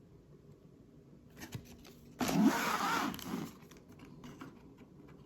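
Trading-card packaging being torn open: a sharp rip of about a second, with light handling clicks before and after.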